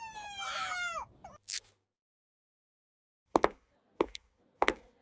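A drawn-out, falling cry trails off in the first second. After a silent gap, a series of sharp clicks or knocks follows, about one every 0.6 seconds.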